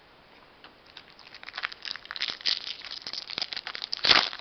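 Wrapper of a 2020 Topps Opening Day baseball card pack crinkling and crackling as it is handled and torn open, starting about a second in, with a loud burst of crinkling near the end.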